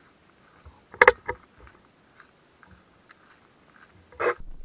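Handling noise from a muzzleloading rifle with a camera mounted on it, carried through the bush: scattered light ticks, a sharp knock about a second in followed by a smaller one, and a short scuff near the end.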